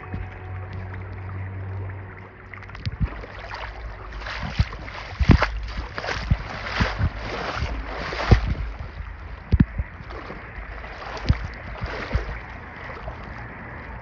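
Outdoor noise beside shallow spring water: a steady low rush, like wind on the microphone and moving water, with irregular knocks and thumps scattered through it, thickest in the middle.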